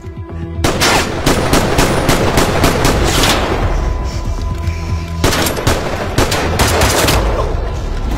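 Heavy automatic gunfire: long strings of rapid shots start about a second in, thin out briefly around the middle, then pick up again, over a low music drone.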